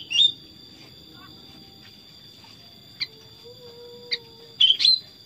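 Sooty-headed bulbul (kutilang) giving short, sharp chirps: two at the start, single ones about three and four seconds in, and a quick pair near the end. A steady high two-tone whine runs underneath.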